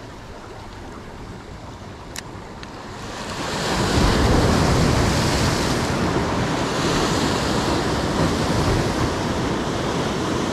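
Sea surf breaking and washing over the concrete tetrapods of a breakwater, with wind on the microphone. The rush swells louder about three seconds in, then holds steady.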